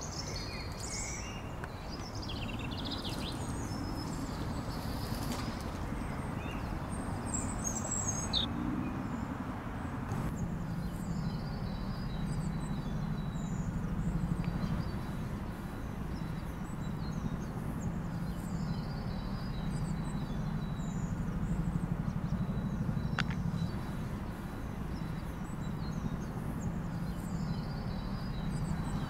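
Small songbirds chirping and trilling on and off, over a steady low rumble that grows stronger about a third of the way in.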